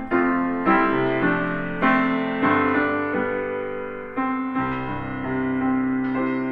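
Solo piano playing slow chords, each struck and left to ring and fade. The chords come about once a second, and the later ones are held longer.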